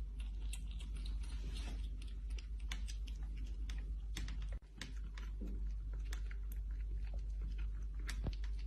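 A kitten suckling from a bottle teat: rapid, irregular small clicks and smacks of its mouth and tongue, over a low steady hum.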